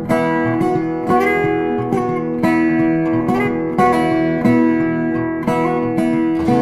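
Background music: strummed acoustic guitar with a regular beat of chords.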